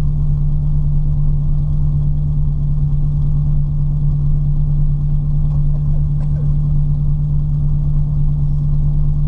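Ford Fiesta ST engine idling steadily, with no revving.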